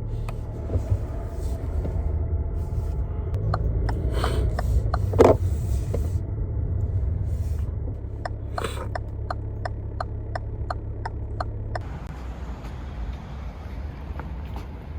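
Steady low vehicle rumble, as heard from inside a moving car, with a regular ticking about twice a second and a few louder knocks. The rumble stops about twelve seconds in.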